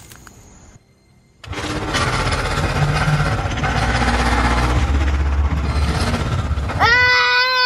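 Rough, low growling of the werewolf for about five seconds. Near the end a loud, held, high-pitched cry breaks in.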